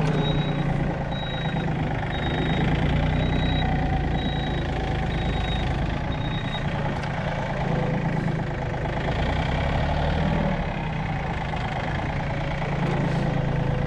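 Yanmar 30-horsepower diesel tractor engine running as the tractor is driven, its note rising and easing a little with load. For the first seven seconds a short high electronic beep repeats a little more often than once a second.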